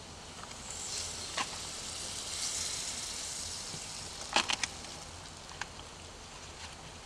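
A pat of butter sizzling in a frying pan of apple chunks and walnuts on a hot woodstove, the hiss swelling after a second and easing off near the end. A few sharp pops break through, one early and a quick cluster in the middle.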